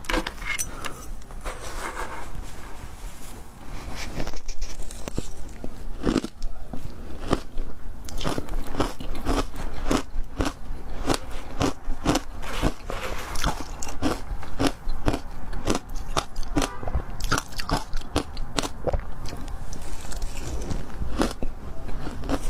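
Close-miked ice being bitten and chewed, a run of sharp, irregular crunches and crackles, often more than one a second, growing denser and louder a few seconds in.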